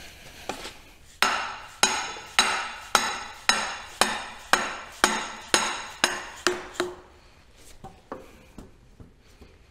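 Orange dead-blow hammer striking the end of a log splitter's hydraulic cylinder rod: about a dozen steady blows, nearly two a second, each with a short metallic ring from the steel cylinder, then a few light taps. The blows drive the rebuilt piston with its new seals into the cylinder bore, a tight fit that the workers take as the sign of good seals.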